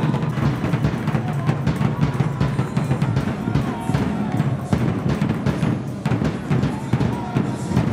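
Background music with a steady, fast drum beat and a heavy bass.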